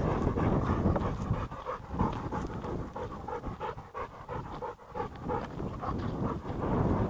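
A dog panting hard and quickly at close range, in a quick even rhythm, to cool off in the heat.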